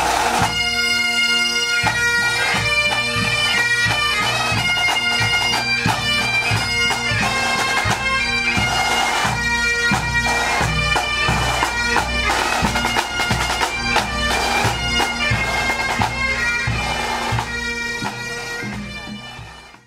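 Pipe band playing: several bagpipes sounding a melody over their steady drone, with snare and bass drums beating time. The music fades out near the end.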